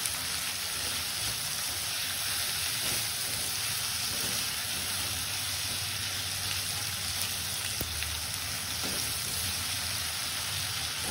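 Chopped vegetables sautéing in hot mustard oil in a frying pan: a steady sizzling hiss as they are stirred with a silicone spatula, with a couple of faint taps late on.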